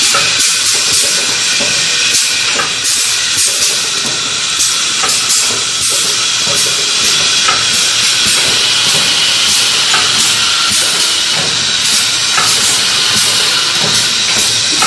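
Paper cup making machine running: a loud, steady hiss over a quick, regular mechanical clatter.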